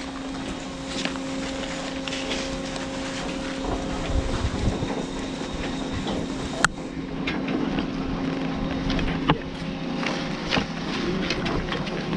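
Double chairlift machinery at the loading terminal running, a steady mechanical hum under the turning bullwheel, with a few sharp clicks, the clearest about six and a half seconds in.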